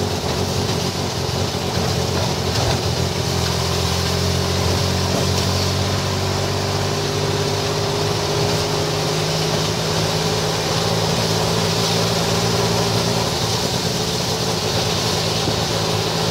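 A vehicle's engine running at a steady pitch while driving, with a steady hiss of road and wind noise.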